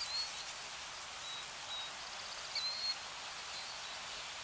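Nature ambience: a steady, even hiss with short, high bird chirps coming every second or so. The loudest pair of chirps falls a little under three seconds in.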